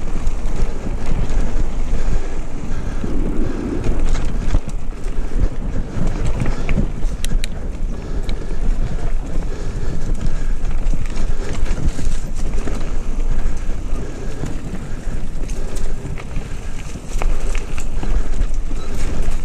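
Mountain bike rolling fast down a dry dirt singletrack, with a constant clatter of knocks and rattles as it runs over bumps. Heavy wind rumble on the microphone runs under it.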